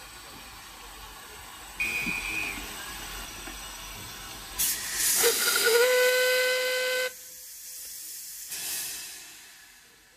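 Steam locomotive's whistle: a short high whistle about two seconds in over a hiss of steam, then a loud rush of steam and a whistle blast of about two seconds that rises slightly into a steady tone and cuts off sharply, leaving a fading hiss of steam.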